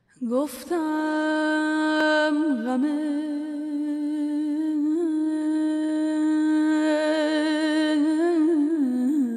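A woman's voice humming one long held note without accompaniment, sliding up into it at the start and breaking into short ornamental turns about two and a half, five and eight seconds in, as in the opening of a Persian classical vocal.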